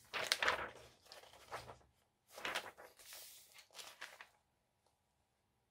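Paper rustling as pages of a handmade junk journal are turned and handled, in two bouts, the second ending a little over four seconds in.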